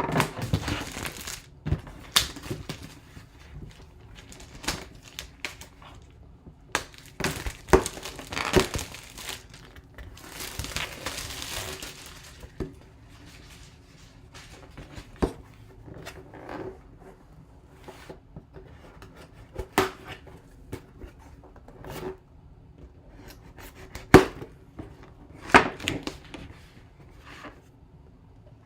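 Packaging of a boxed autographed jersey being opened by hand: plastic crinkling and tearing, with scattered knocks and clicks from cardboard. The longest stretch of tearing and rustling comes about ten seconds in.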